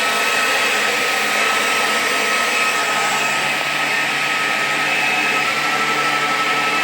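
A small electric blower motor running steadily: an even rush of air with a steady high whine over it.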